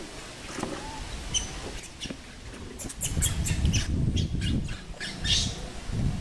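A few short, high chirping calls from an animal in the first half, then from about three seconds in a louder low rumble with crackling, as of tree branches and leaves being moved.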